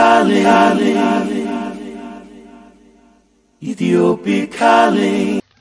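Sung a cappella vocal jingle for a show ident: a sung phrase that fades away over about three seconds, then a second short sung phrase that stops just before the end.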